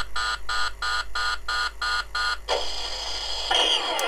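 Hasbro Spengler Neutrona Wand toy's speaker sounding its overheat warning: rapid electronic beeping, about three beeps a second, which stops about two and a half seconds in. A falling whine follows near the end.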